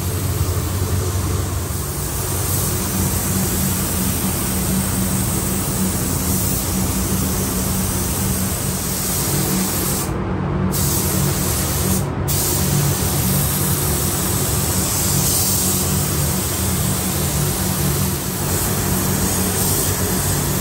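Compressed-air gravity-feed spray gun hissing steadily as it lays a coat of primer sealer on a truck cab, over a steady low hum. The hiss cuts out briefly twice about halfway through.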